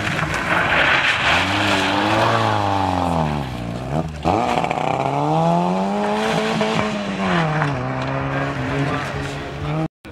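Fiat Seicento rally car's engine revving hard, its note climbing and falling several times as it accelerates and slows around the markers, with a sharp drop and fresh climb about four seconds in. Tyres hiss on the loose gravel during the first two seconds, and the sound breaks off briefly near the end.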